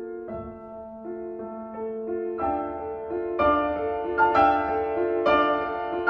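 Slow background piano music with held notes, growing louder and fuller after about two and a half seconds.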